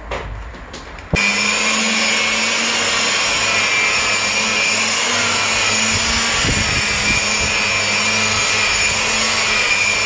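Electric rotary polisher running steadily at speed with a high whine, its foam pad buffing polish into car paint. It starts abruptly about a second in.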